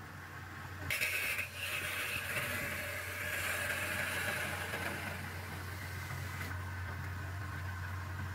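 Wood lathe running with a steady motor hum. About a second in, a hissing friction rub starts as a hand presses along the spinning turned wooden piece, and it stops about two-thirds of the way through.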